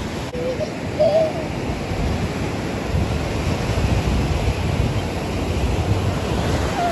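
Sea waves breaking and washing up the sand, a steady rushing surf with low rumble. A couple of short high-pitched sounds come about a second in, and another near the end.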